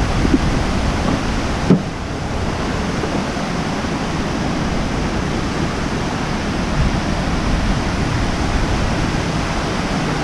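Steady rushing roar of a waterfall's falling water, with one brief thump about two seconds in.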